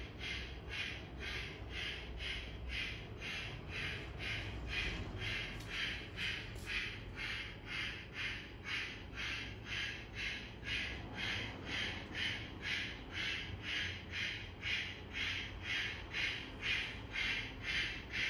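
Model steam locomotive's sound decoder chuffing steadily, about two and a half short hissing chuffs a second, growing a little louder near the end.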